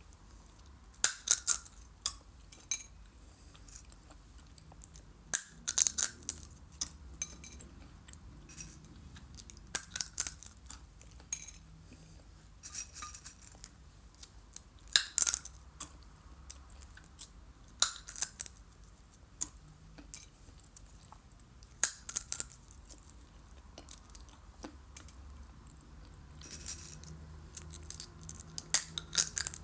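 Sunflower seeds being cracked open between the teeth: clusters of sharp cracks and crunches every two to four seconds, some single, some in quick runs, over a faint low hum.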